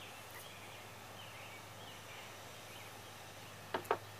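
Two quick sharp clicks, a fraction of a second apart, near the end, from a PVC fitting and primer can being handled on a table, over a quiet background with a steady low hum.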